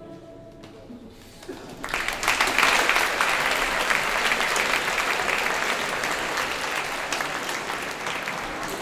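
The last notes of a choir's song die away, then audience applause starts about two seconds in and continues steadily.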